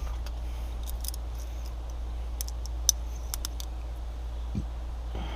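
Scattered small metallic clicks and taps of a hole saw and its pilot drill bit being handled as the bit is worked out, with a dull knock near the end, over a steady low hum.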